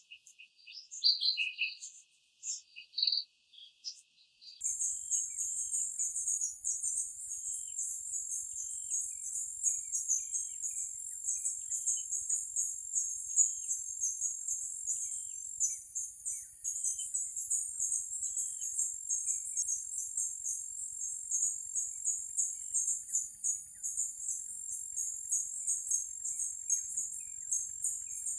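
A few high bird chirps, then from about four and a half seconds in a dense, steady chorus of crickets, with a bird repeating short chirps every half second or so beneath it.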